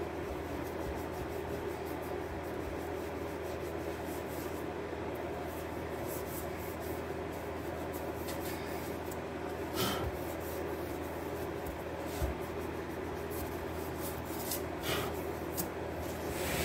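Hand sanding of a painted alloy wheel: steady rubbing of abrasive over the rim and spokes, scuffing the old finish so the new paint will key. A few light knocks stand out, one about ten seconds in and another near fifteen seconds, over a steady low hum.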